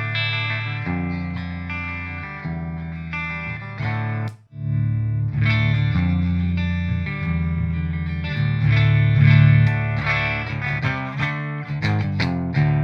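Gibson Les Paul electric guitar played clean through an amplifier's clean channel with no effect pedal, giving a pristine clean tone. Sustained chords change every second or so, with a short break about four and a half seconds in and quicker picked notes near the end.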